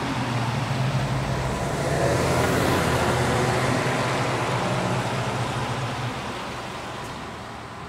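A 1967 Ford Mustang convertible driving past on a wet road: its engine runs with a low steady note under the hiss of tyres on wet tarmac. It grows louder to a peak in the first few seconds, then fades gradually as the car moves away.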